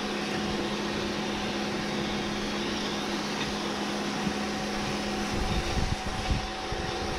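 A steady engine hum runs throughout, with several dull low thumps in the last couple of seconds as a long iron digging bar is worked into stony ground.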